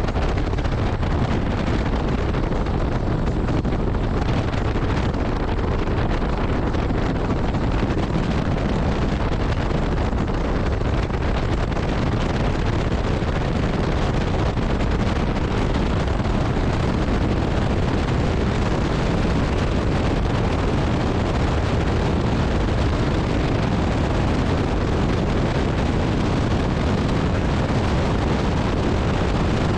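Open-cockpit biplane's piston engine and propeller running steadily while the plane rolls on the ground, with wind rushing over the microphone.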